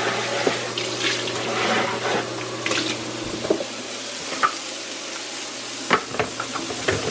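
Kitchen faucet sprayer running water into a plastic food container in a stainless steel sink as it is rinsed out. A few sharp knocks come near the end.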